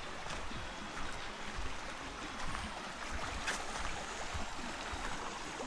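Running water rushing steadily, as of a stream or falls, a constant hiss.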